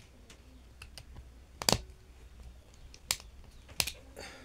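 Small sharp clicks and taps of a screwdriver working the terminal screws of a plastic double-pole circuit breaker: three louder clicks in the second half, spaced about a second apart, then a short scrape near the end.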